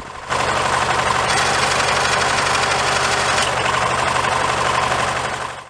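Massey Ferguson 210 tractor engine running steadily, turning the newly fitted crankshaft electric clutch and its belt and pulleys on their first test run. The sound comes in about a third of a second in and drops away just before the end.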